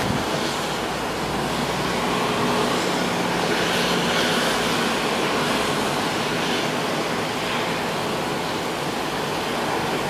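Strong storm wind rushing steadily through trees, with rain, as one even, unbroken noise.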